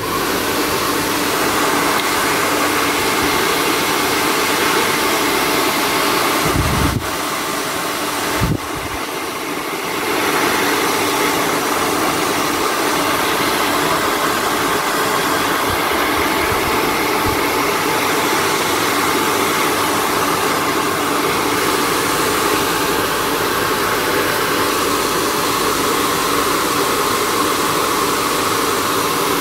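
Hair dryer blowing steadily, with a faint motor whine, heating a phone screen to soften its adhesive. It drops in level about seven seconds in and comes back up about three seconds later.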